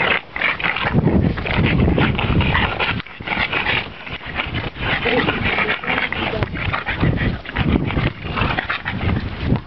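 Boston terriers vocalizing excitedly at close range as they play, chasing a basketball.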